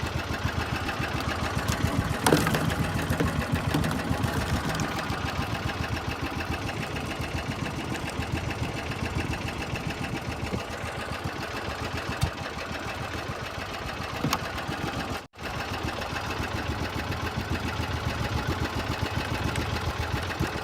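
Small fishing boat's engine running steadily with a fast, even chugging beat.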